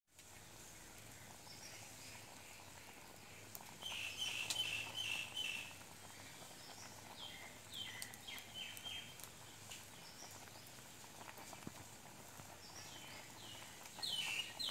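Birds chirping outdoors: clusters of short, falling chirps a few seconds apart over faint background hiss.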